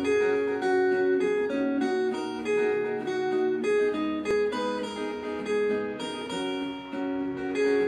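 Backing music: an acoustic guitar picking a steady melody, its notes ringing and fading about twice a second, with no harmonica yet.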